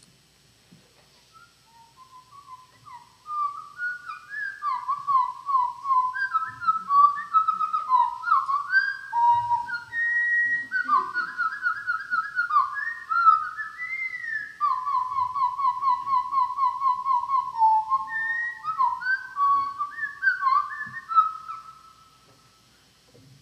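A recording of a winter wren's song played back slowed down, so its rapid trills and warbles come out lower and slower, like a long run of whistled notes. It builds up about two to three seconds in, goes on as fast repeated notes and short rising and falling glides, and fades out shortly before the end.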